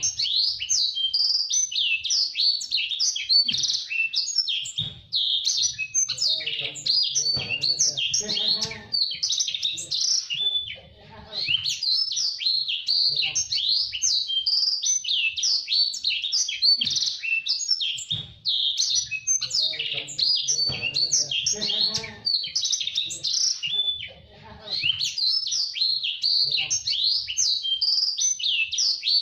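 A blacksang, a cage-bird hybrid of blackthroat and sanger, singing a long, fast, tightly packed run of high chirps and trills, broken by two short pauses.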